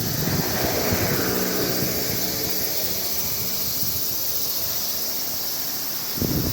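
A steady mechanical hum with a low droning tone that fades away over the first few seconds.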